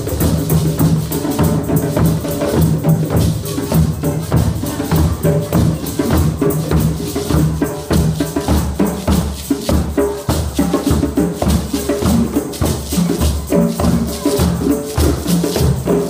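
A drum circle playing together: many drums and hand percussion beaten at once in a dense, steady rhythm.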